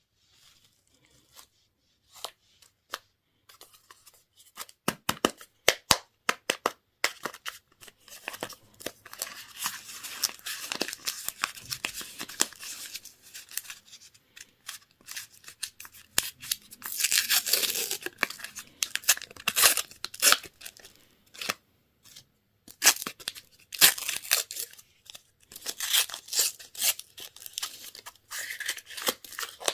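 Plastic candy wrapping being torn open and crinkled by hand: irregular spells of sharp crackling and clicking, busiest about a third of the way in, again around the middle and near the end.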